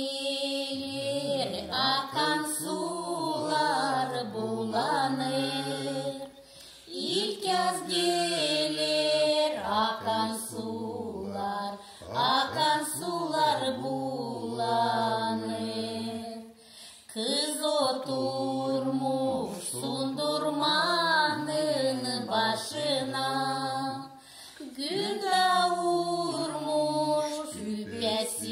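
A traditional Gagauz folk song sung by a single voice in long melodic phrases, with short breaks between them.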